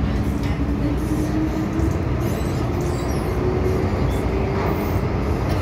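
Cabin noise of a Hong Kong MTR M-Train running in the tunnel: a steady rumble of wheels on rail, with a motor whine rising slowly in pitch as the train picks up speed.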